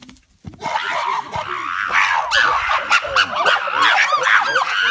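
Chimpanzees calling: a fast run of short, high, rising-and-falling hoots and squeals, many overlapping, starting about half a second in and going on without a break.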